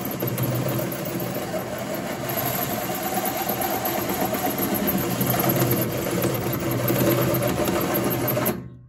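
Electric drill turning a hole saw through the sheet-metal casing of a Hotpoint 1012 spin dryer, running steadily under load, then stopping abruptly near the end.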